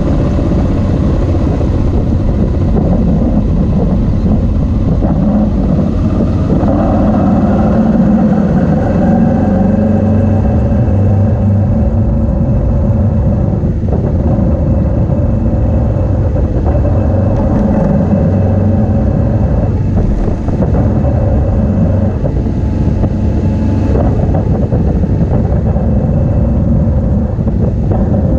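Motorcycle engine running steadily under way, heard on board from a camera mounted on the bike, with tyre rumble and wind noise.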